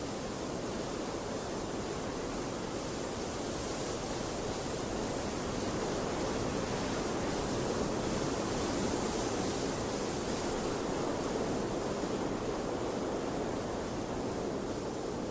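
Steady rush of water that swells gently toward the middle and eases off again.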